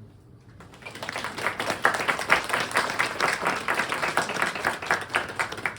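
A small audience clapping. It starts about half a second in, builds quickly, and stops just before the speaking resumes.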